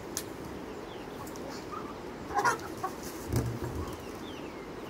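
Chickens clucking over a steady low background, with the loudest clucks about two and a half seconds in. A few brief, high, falling chirps from small birds come through as well.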